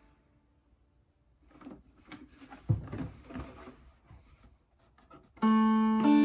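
Soft knocks and rustles, then about five seconds in a Seahorse Mini Jumbo dulcimer, with a redwood top and walnut body, starts playing: loud ringing plucked notes over a steady low drone note.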